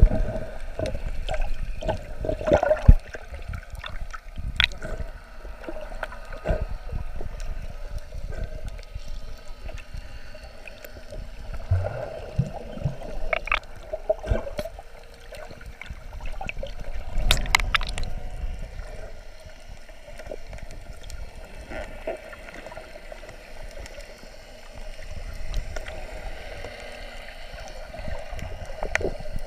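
Muffled underwater sound from a GoPro in its waterproof housing: a continuous gurgling wash of moving water, with a faint steady hum and scattered sharp clicks and knocks, a cluster of them about two-thirds of the way through.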